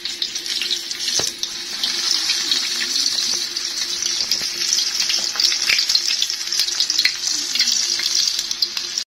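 Breaded stuffed green chillies deep-frying in hot oil in a cast-iron pan: a steady sizzle full of small crackling pops.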